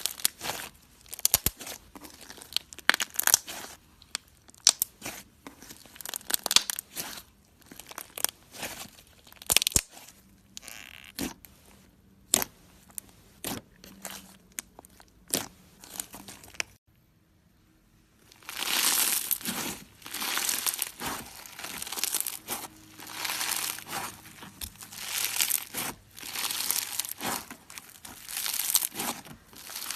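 Slime being squeezed and pressed by hand: sharp sticky pops and crackles, then, after a brief silence, denser crinkly crackling that swells and fades every second or two.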